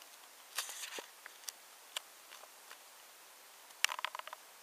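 Camera handling noise over a faint hiss: scattered light clicks and rattles, with a short clatter about half a second in and a quick run of clicks near the end.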